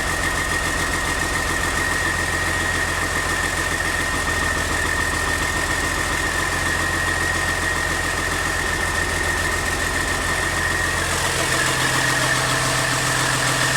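Caterpillar C13 inline-six diesel running steadily on its first run after a rebuild, with a steady high whine over the engine rumble; about three-quarters of the way through, the low engine note shifts slightly.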